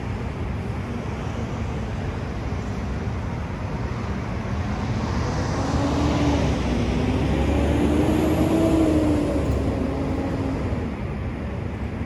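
Street traffic noise with a steady rumble, as a motor vehicle passes and grows louder through the middle, loudest about eight to nine seconds in, its engine tone rising and then falling away.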